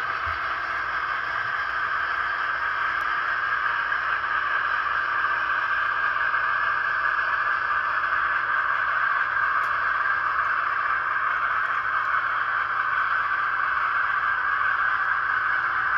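N-scale model freight train running along the track behind two model steam locomotives: a steady whirring hiss from the small motors and the wheels on the rails, growing slightly louder as the train passes.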